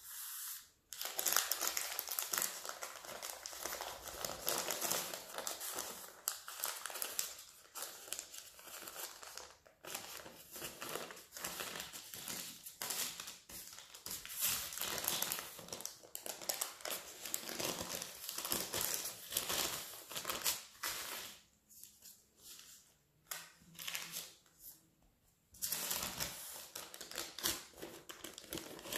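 Baking paper crinkling and rustling as it is lifted and pulled to roll up a sheet of filled brioche dough, with two short pauses a few seconds before the end.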